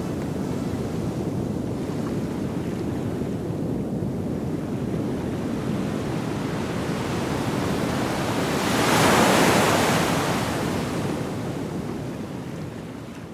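Sea waves washing in, a steady rushing with one wave surging louder about two-thirds of the way through, then fading away.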